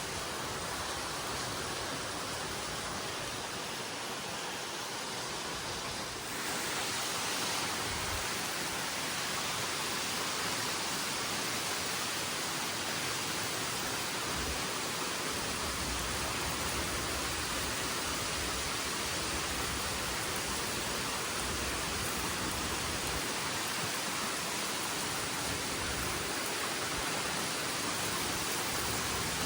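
Heavy rain pouring down as a steady hiss, growing louder about six seconds in, with a few brief low bumps.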